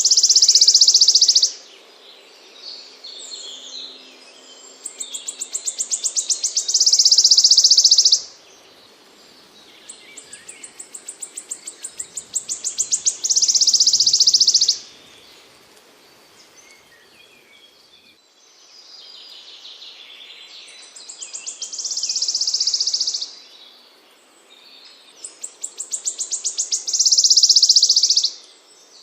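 A small songbird repeating a high-pitched phrase about every six seconds: rapid ticks that speed up and grow louder, running into a buzzy trill about a second and a half long. Softer twittering calls come between the phrases.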